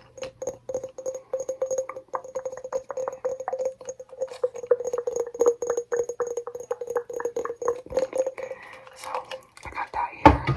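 Fingernails tapping rapidly on a glass jar, many quick taps a second that keep the jar ringing with a steady tone. The tapping stops after about eight seconds, and a loud low thump follows near the end as the object is set down or handled.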